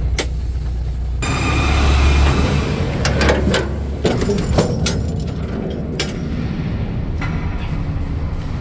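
Shipping container door being unlatched and opened: the steel locking handles and bars clank in about six sharp metallic knocks, coming in a run from about three to six seconds in. A low rumble comes before them, loudest about two seconds in.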